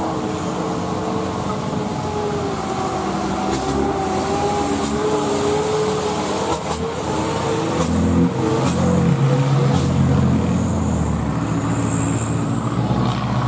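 Road traffic passing: a loaded light truck's engine pulling past, its pitch rising and falling, among cars and motorbikes going by.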